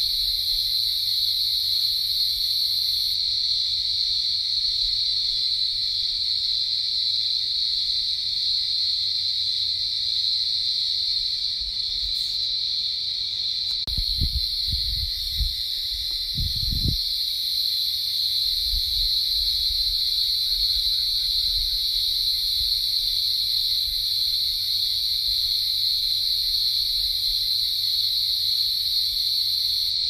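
A dense chorus of calling insects: a steady, high-pitched drone that holds without a break. A few low thuds come about halfway through.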